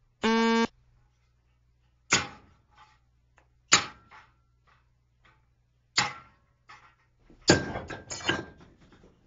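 A short steady beep, then a blacksmith's hammer striking hot steel on an anvil five times at uneven intervals, each blow dying away quickly with a slight ring, the last two close together. A low hum runs underneath.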